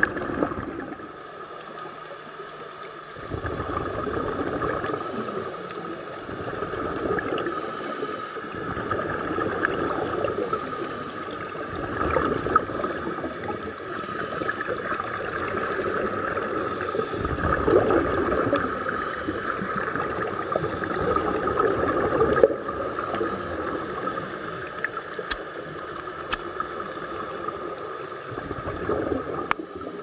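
Scuba regulators heard underwater: bursts of bubbling exhalation every few seconds, over a faint steady tone.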